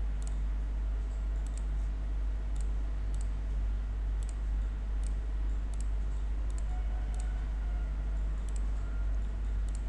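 Computer mouse buttons clicking about a dozen times at irregular intervals, some in quick pairs, as cable ports are picked from a menu. A steady low electrical hum runs underneath.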